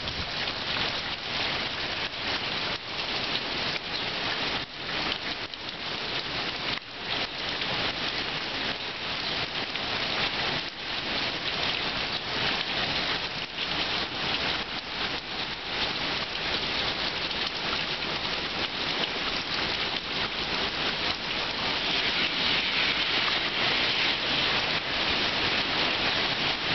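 Heavy hurricane rain pouring steadily onto a yard and flooded street, a dense, even hiss that grows a little louder near the end.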